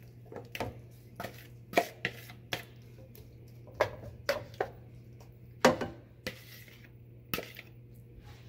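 Spatula knocking and scraping against a nonstick frying pan and a bowl as raw shrimp are tipped into melted butter and stirred: about a dozen irregular clacks, the loudest about two seconds in and just before six seconds in.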